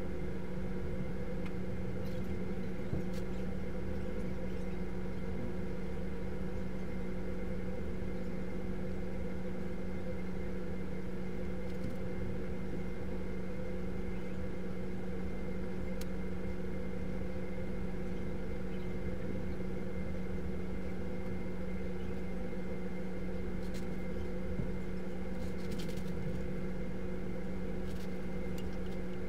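Steady low machine hum with a faint hiss over it, the room tone of an office, broken only by a few faint clicks.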